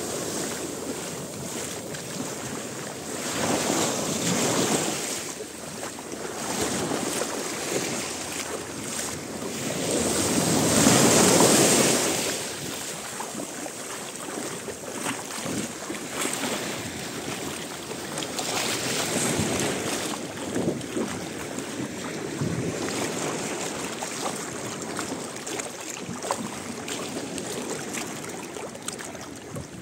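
Small waves washing up on a sandy beach, the surf swelling and fading every few seconds, the loudest wash about eleven seconds in.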